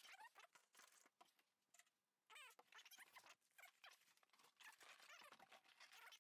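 Near silence, with faint scattered squeaks and rustles.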